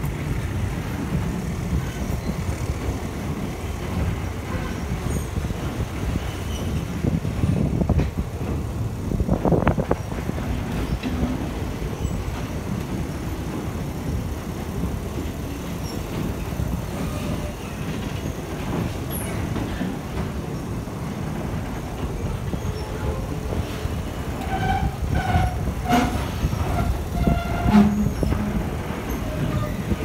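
Passenger train running, heard from aboard a carriage: a steady low rumble and rattle from the wheels and car body. There is a louder knock about nine and a half seconds in and a few short high tones near the end.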